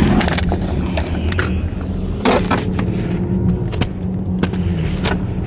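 Steady low road and engine rumble inside a moving car's cabin, with several sharp clicks and knocks from the camera being handled and moved about.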